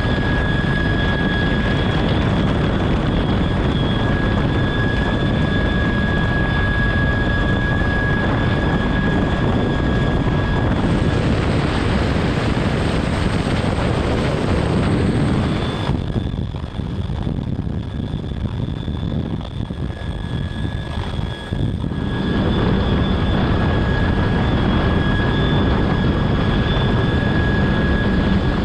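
Military helicopter heard from inside its cabin in a hover: steady heavy rotor and engine noise with a high turbine whine. About sixteen seconds in, the sound drops and turns duller for some six seconds, then comes back at full strength.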